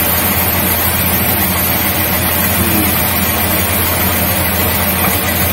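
Iseki coin-operated rice milling machine running: a steady, even motor hum with a constant rushing noise as the last rice in the intake hopper is drawn into the mill.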